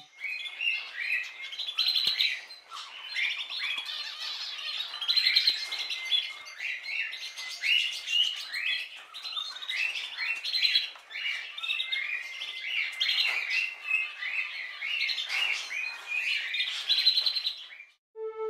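A dense chorus of many small birds chirping and calling at once, with short overlapping chirps and warbles that cut off suddenly near the end.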